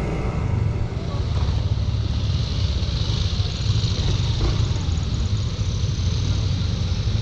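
Motor scooter on the move: a steady low rumble of engine and road noise, with a broad rush of wind over it.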